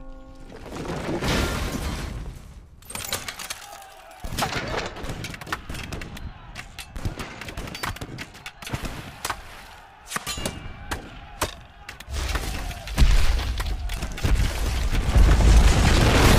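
Film sound effects of huge rock moving: a run of sharp cracks and clattering debris from crumbling stone, then a heavy deep rumble that swells and stays loud in the last few seconds.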